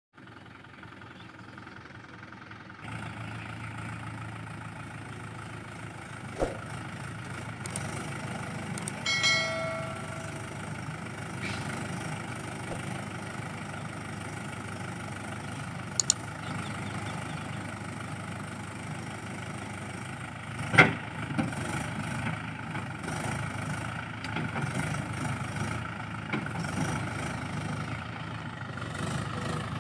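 An engine idling steadily. A short pitched tone sounds about nine seconds in, and there are a few sharp clicks, the loudest a knock about twenty-one seconds in.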